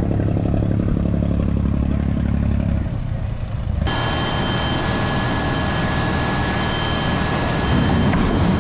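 An engine running steadily. About four seconds in the sound changes abruptly to a noisier one with a steady high whine.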